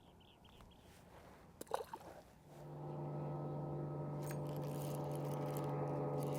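A few sharp knocks, then a boat motor starts a steady, even hum about two and a half seconds in.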